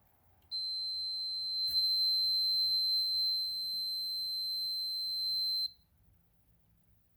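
A continuity tester's beeper sounds one steady, high-pitched tone for about five seconds, signalling a closed circuit through the pressure switch under test. A click comes about a second after the tone starts.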